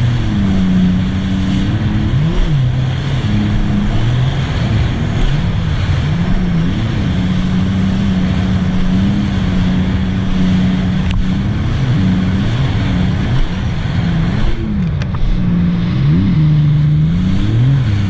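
A 2018 Sea-Doo RXT-X 300's supercharged three-cylinder engine, fitted with a Riva Racing free-flow exhaust, running under way at speed. The engine note dips and rises several times as the throttle and load change. A steady rush of wind and water runs under it.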